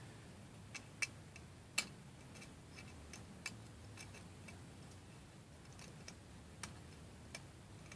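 Scattered light clicks and taps, irregularly spaced, from handling and working a 3D-printed PLA plastic figure with a small hand file, over a faint low hum.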